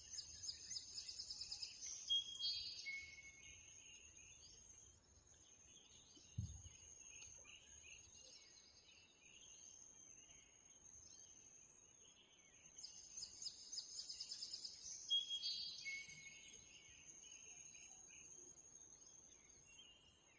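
Faint birdsong: the same phrase, a fast high trill followed by a few shorter lower notes, is sung twice, near the start and again about two-thirds of the way through. It sits over a steady high insect drone, and a single soft thump comes about six seconds in.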